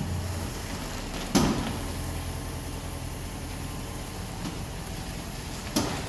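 2005 Jeep Grand Cherokee WK running, with two sharp clunks about four seconds apart, the louder one about a second and a half in. This is the clunk the owner hears on right turns, which appeared after new struts, control arms, sway bar links, bushings and rack and pinion.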